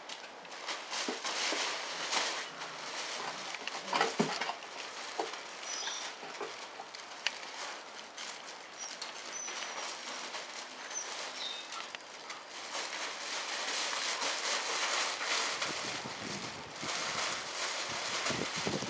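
Five-week-old Belgian Tervuren puppies playing on paving stones: patter and scratching of many small paws, with rustling and a few knocks as they scramble around a fabric play tunnel and a wooden box. The loudest knock comes about four seconds in.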